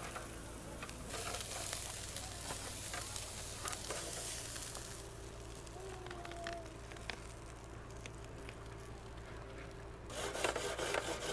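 Metal tongs scraping and clicking on a small charcoal grill's grate as grilled steaks are lifted onto a paper plate, over a faint sizzle. The scraping gets louder near the end.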